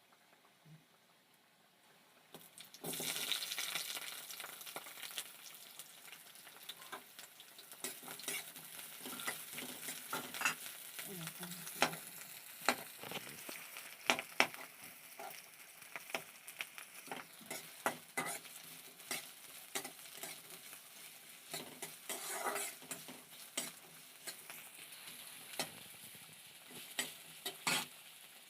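Food frying in hot oil in a pan: the sizzling starts suddenly about three seconds in and carries on, while a utensil stirring the pan knocks and scrapes against it again and again.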